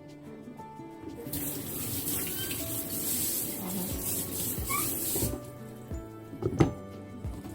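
Kitchen tap running in a steady stream for about four seconds, starting about a second in and shutting off abruptly, over background music. A few sharp knocks follow near the end.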